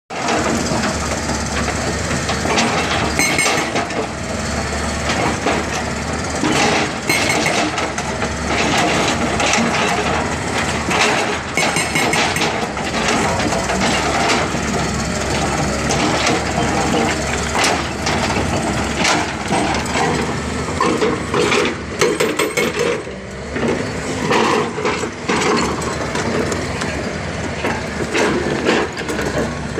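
JCB JS205 tracked excavator working on broken rock: the diesel engine and hydraulics running steadily, with irregular clanks and knocks of steel on stone.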